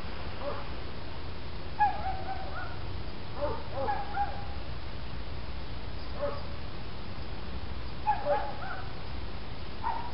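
An animal's short calls, each bending in pitch, come in about six uneven bursts over a steady low hum.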